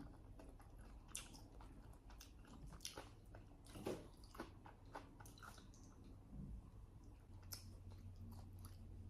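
A person quietly chewing and biting food close to the microphone, a scatter of soft crunches and mouth clicks.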